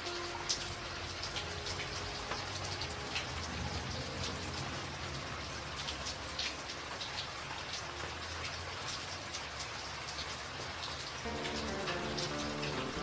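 Steady rain, with many sharp individual drop hits over an even hiss.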